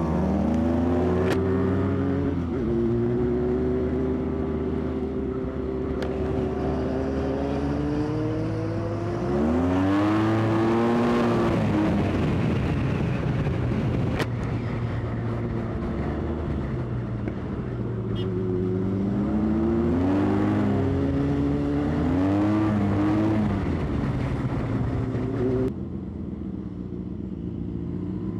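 Sport motorcycle engine on the move, its pitch climbing and dropping several times as the rider works the throttle and shifts gears, over a steady rush of wind noise.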